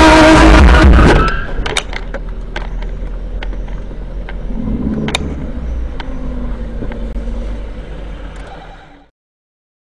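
Music ending about a second in, then the low drone of a car's engine and road noise heard from inside the cabin, with a few scattered light clicks, fading out near the end.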